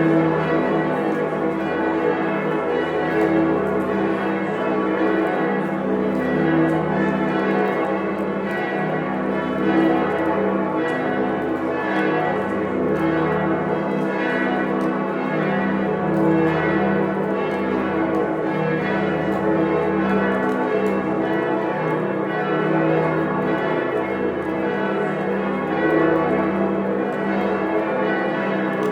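Church bells pealing: several bells swinging together in a continuous full peal, their overlapping strikes blending into a dense, steady ringing with swells every few seconds.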